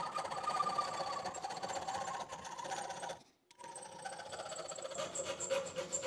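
Small steel file of a budget multi-tool rasping back and forth across a mild-steel nail held in a vise, with a brief pause about three seconds in. The file is biting slowly but steadily into the nail: not very aggressive, but getting through.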